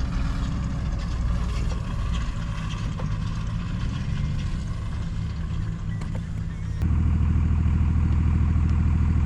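Tractor engine running steadily. About two-thirds of the way in the sound switches abruptly to a louder, deeper steady hum.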